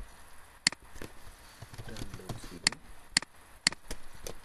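Sharp clicks of a computer mouse and keyboard: a single click, then four key presses about half a second apart.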